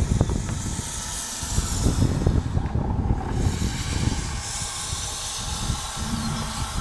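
Gusty wind buffeting the microphone: a rough, uneven low rumble with a steady hiss over it, the hiss easing briefly about three seconds in.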